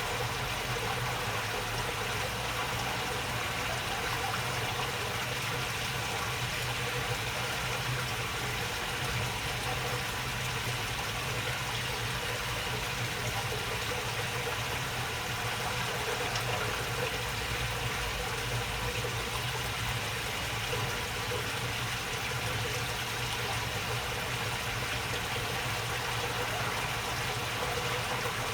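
Water babbling steadily along a shallow channel, with a steady low hum underneath.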